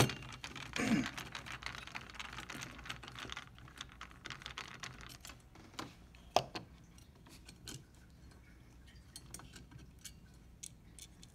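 Screwdriver turning out a screw and small metal and plastic parts of a Triton ATM receipt printer being handled, with scattered light clicks and taps, a sharp click at the start and a knock about six seconds in.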